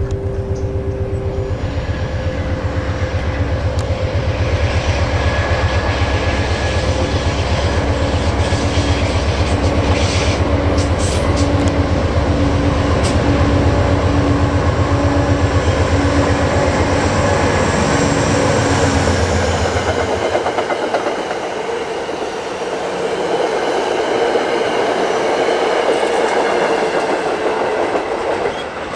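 Amtrak passenger train led by a GE Genesis diesel locomotive, its engine droning as the train approaches and passes. About twenty seconds in the low engine drone falls away, leaving the rumble of the passenger cars rolling by on the rails.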